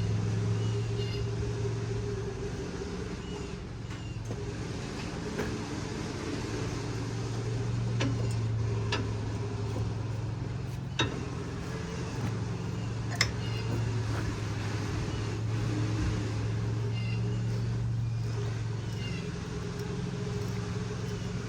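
A steady low mechanical hum of a running motor or engine, with a few sharp clicks or taps scattered over it.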